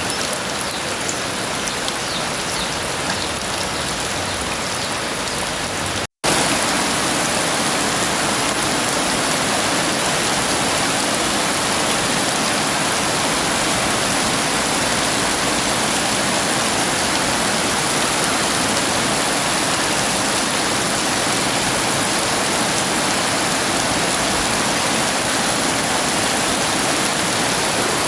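Heavy rain falling steadily, a dense even hiss of drops. It cuts out for a split second about six seconds in and comes back slightly louder.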